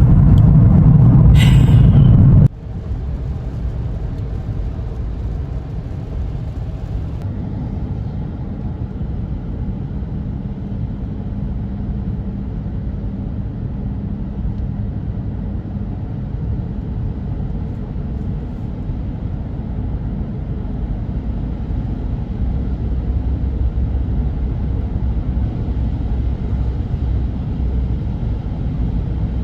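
Car road and engine noise heard from inside the cabin while driving, a steady low rumble. It drops suddenly to a quieter level about two and a half seconds in, then runs on evenly, swelling a little near the end.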